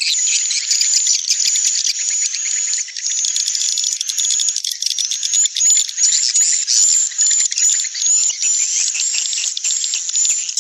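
Recorded edible-nest swiftlet calls played as a swiftlet-house lure: a 'panggil' (calling) track layered in stereo with an 'inap' (roosting) track. Dense, continuous, high-pitched chirping and buzzing trills from many birds at once.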